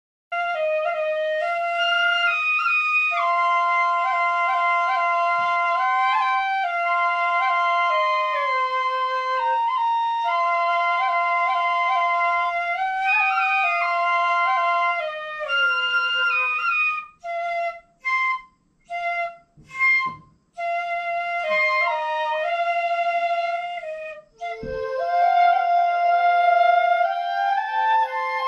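Shinobue, Japanese bamboo transverse flutes, playing a slow melody in held notes that step up and down. About two-thirds of the way through the playing breaks into short notes and pauses, then a low thump is heard and a new phrase begins.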